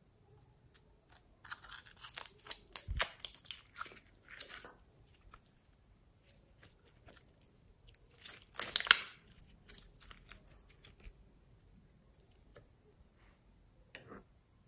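Glossy red slime being pulled from its tub and worked by hand: sticky crackling and popping in two bursts, the second about eight seconds in, with scattered small clicks between.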